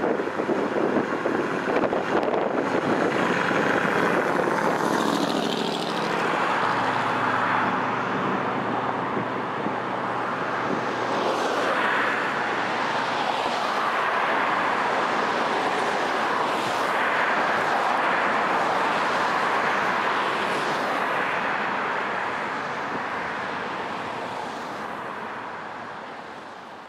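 Steady road and traffic noise of cars driving along a busy road, with slow swells as vehicles pass. It fades out near the end.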